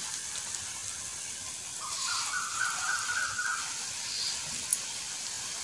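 Small portions of fish-roe and gram-flour batter frying in hot oil in a steel kadai, a steady sizzle. A faint thin whine sounds for a couple of seconds midway, and there is one light click near the end.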